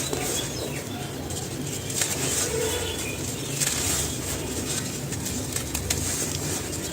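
Dry cement crumbling and crunching: a continuous rustling crackle with a few sharper snaps.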